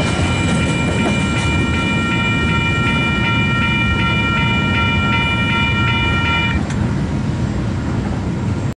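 Western Cullen Hayes electronic level-crossing bells ringing with rapid, evenly repeated strokes, stopping about six and a half seconds in as the crossing clears. Under them runs the steady low rumble of a departing train, and all sound cuts off abruptly at the very end.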